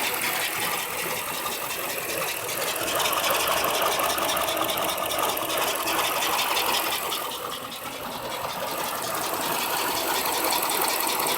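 2007 Dodge Magnum's 5.7 Hemi V8 idling rough and uneven up close, with a fast, even ticking. It is misfiring after being revved from cold, which the owner thinks may come from cylinder 5 (a loose or broken valve spring) or, most likely, the throttle body.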